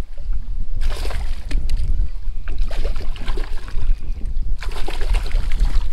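Wind buffeting the microphone in a steady low rumble, broken by three bursts of rushing noise about a second, two and a half seconds and nearly five seconds in.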